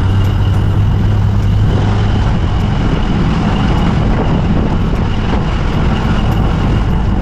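Motorcycle engine of a Philippine tricycle (motorbike with sidecar) running at a steady cruise, with a constant drone and road noise.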